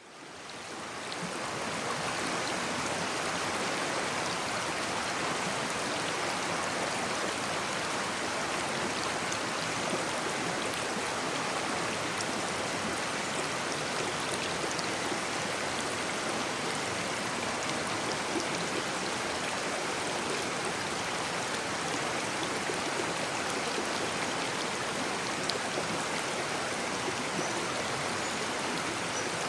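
Babbling brook: a shallow stream running and burbling steadily, fading in over the first couple of seconds.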